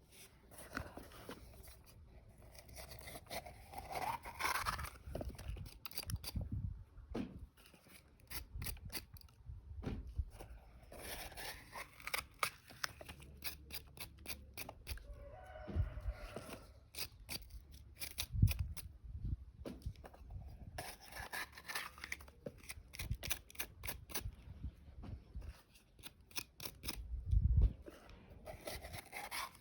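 Fresh red peppers being cut open and torn by hand to make isot: quick runs of crisp snipping and tearing, with a few dull knocks now and then.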